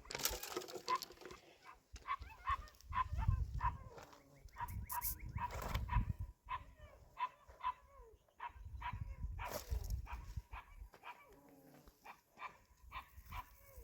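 A dog barking and yipping repeatedly in short, quick calls, two or three a second, with a few dull low thumps in between.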